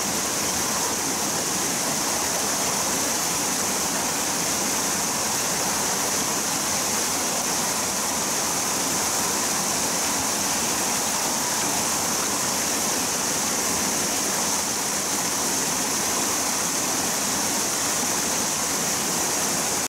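Water pouring over a small sabo check dam and running through a rocky mountain stream: a steady rush with no break.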